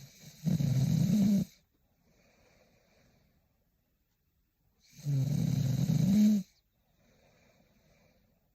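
A woman snoring in her sleep: two loud, low snores about four seconds apart, each lasting a second or more, with softer breaths between them.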